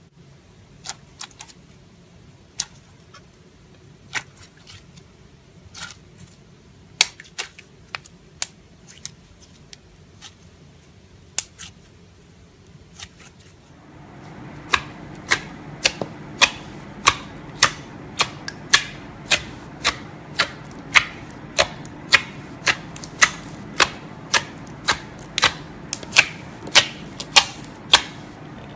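Clear slime being squeezed and pressed by fingers, giving sharp clicking pops: scattered at first, then from about halfway a steady run of about two pops a second over a low, steady background noise.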